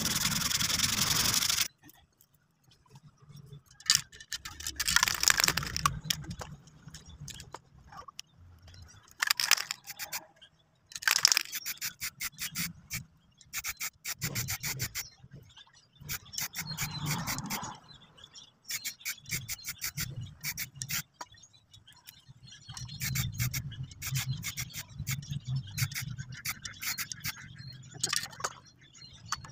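Sandpaper rubbing on a plastic housing for the first couple of seconds, then an aerosol spray-paint can hissing in repeated short bursts, with quick rattling clicks between sprays.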